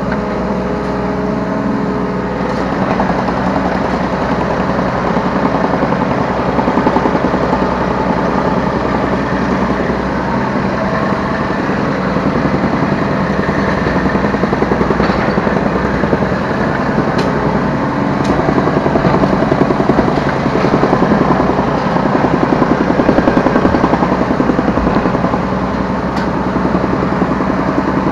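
Diesel engine of a Yanmar B3Σ 3-ton mini excavator running under working load, heard from the operator's seat, its level swelling and easing as the hydraulics work the arm and bucket.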